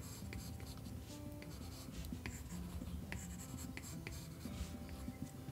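Apple Pencil tip tapping and rubbing on an iPad's glass screen in quick, repeated short strokes, with small clicks as the nib touches down.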